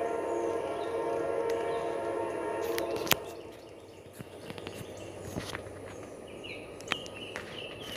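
Locomotive horn sounding a long steady chord that cuts off about three seconds in, ending with a sharp click. Birds chirp faintly afterwards.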